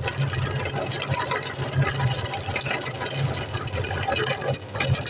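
Electric meat grinder running steadily with a low motor hum while grinding bubble gum, with a dense scattered crackle as the gum is forced through. The sound dips briefly near the end.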